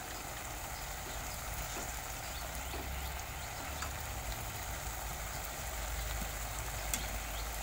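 Fish curry cooking on a low flame in a non-stick pan: a steady faint sizzling and bubbling of the masala, with a couple of faint clicks from the spatula.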